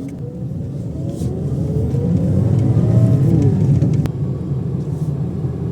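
Toyota Vios engine running with its new fuel pump fitted, revved once: the pitch rises to a peak about halfway through and falls back to idle. It runs smoothly, a sign that fuel pressure is restored. A single sharp click sounds a little after the rev.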